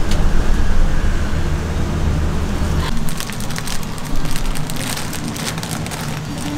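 A low rumble, then from about three seconds in, irregular crackling of a plastic bag as a gloved hand handles a stack of flour tortillas.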